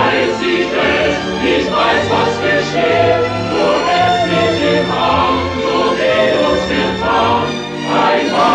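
Film soundtrack music: a choir singing long sustained notes over orchestral accompaniment.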